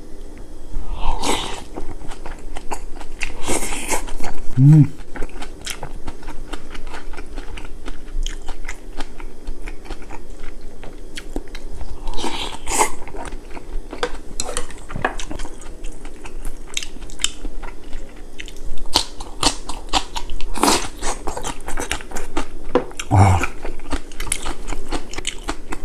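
Close-miked eating: chewing and biting on spoonfuls of Korean beef rice soup and kimchi, with rapid wet mouth clicks and several louder crunching bites.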